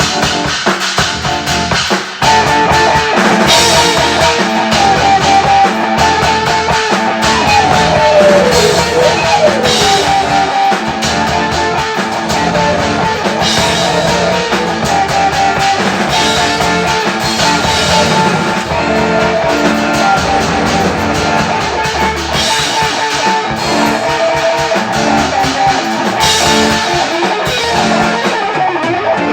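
Instrumental rock music: guitar over a drum kit, with one note sliding down in pitch about eight seconds in.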